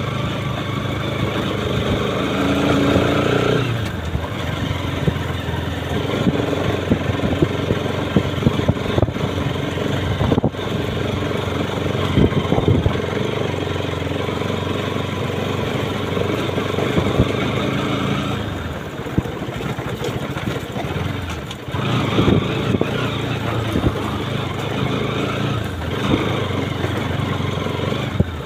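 Motorcycle engine running while the bike is ridden over a rough dirt track, the revs rising and falling with the throttle, with frequent knocks and rattles from the bumps.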